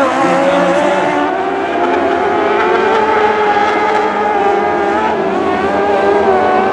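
Several dwarf race cars with motorcycle engines running hard together at racing speed, a steady layered engine note whose pitches waver slightly as the cars lap.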